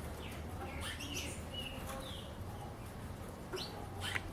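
Wild birds calling: short, scattered chirps and quick high notes that slide in pitch, a cluster about a second in and a couple more near the end, over a steady low hum.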